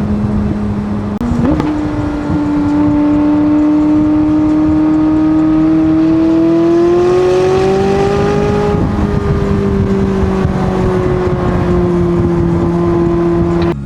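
McLaren 600LT's twin-turbo V8 running under way: its pitch jumps up suddenly about a second in, then climbs slowly as the car accelerates and eases off gently after the middle. The sound cuts off abruptly at the end.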